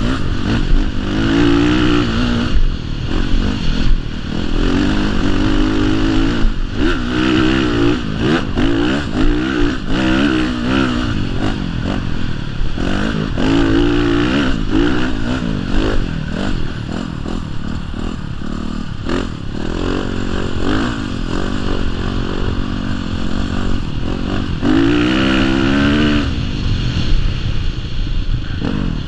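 Honda CRF450 dirt bike's single-cylinder four-stroke engine being ridden hard on sand, its pitch rising and falling again and again as the throttle is worked and gears change, with steady wind noise underneath.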